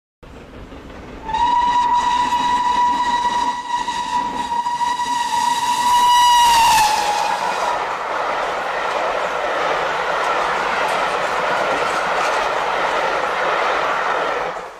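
Steam locomotive whistle blown in one long steady note of about five seconds, dropping in pitch as it closes. Then a steady rushing noise of the running train, which cuts off abruptly near the end.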